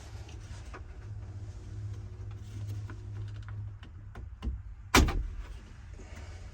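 Clicks and rattles of hands and tools working on plastic dashboard trim, with one loud knock about five seconds in, over a steady low hum.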